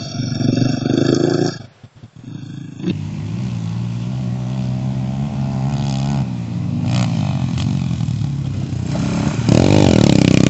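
Motocross dirt bike engines revving, their pitch rising and falling through gear changes. The sound cuts out briefly about two seconds in. Near the end one bike comes close and gets much louder, its pitch sweeping up and down.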